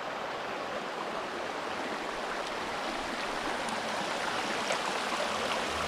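Shallow mountain creek flowing over bedrock and stones, a steady rush of water.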